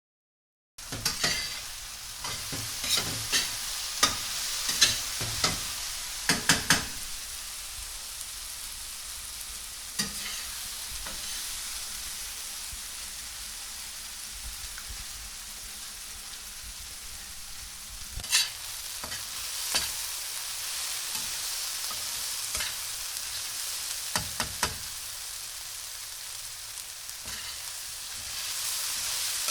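Onions frying in a pan, sizzling steadily, with scrapes and knocks of a utensil stirring them in clusters during the first several seconds and again a few times later.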